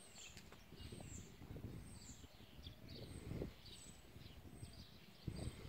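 Faint outdoor ambience: small, high bird chirps repeating quietly in the distance over a low rumble of wind or handling on the microphone, which swells near the end.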